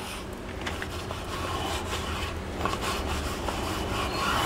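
Silicone spatula scraping and rubbing against a frying pan beneath a frying pancake, in short irregular strokes over a low steady hum.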